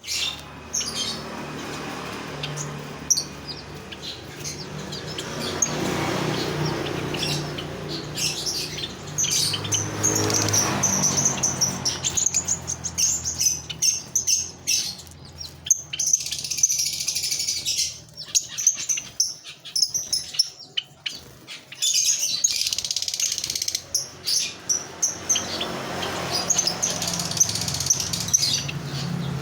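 Lovebird chattering: rapid, shrill, high-pitched chirps and squeaks in bursts with short breaks, busiest through the middle and near the end.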